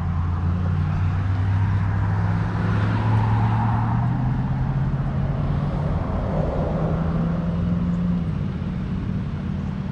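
A motor vehicle's engine idling with a steady low hum, while two vehicles pass on the road, about three seconds in and again near seven seconds.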